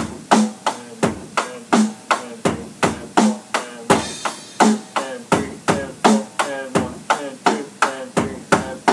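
Electronic drum kit playing a steady rock beat with the hi-hat moved off the beat onto the offbeats. The strikes come about three a second, with a heavier drum hit recurring every other stroke or so.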